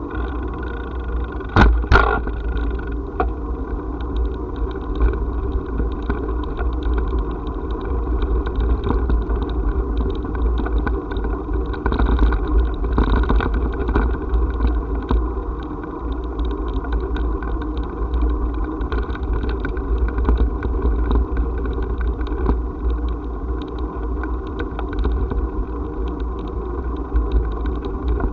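Steady low rumble and fine rattling of a bicycle rolling over brick paving, picked up by a camera riding on the bike, with a sharp double knock about two seconds in.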